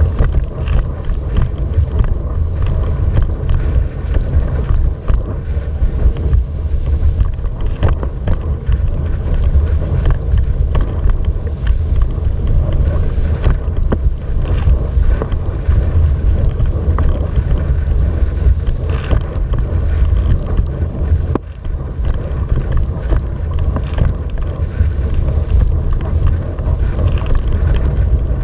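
Wind buffeting the microphone of a camera mounted on a windsurfer's rig, a loud steady rumble, with water rushing and slapping under the board as it sails.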